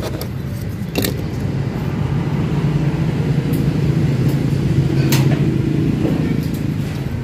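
A motor vehicle's engine running with a steady low hum that swells toward the middle and eases off again, with a sharp click about a second in and another about five seconds in.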